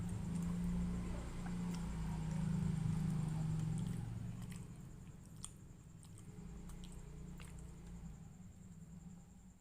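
Close-miked chewing of a soft, chewy sweet pancake (martabak manis), with small wet mouth clicks; it is louder for the first few seconds, then quieter.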